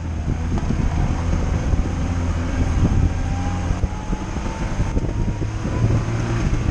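Lada Niva driving off-road, its engine running with a steady low rumble, heard from inside the cabin.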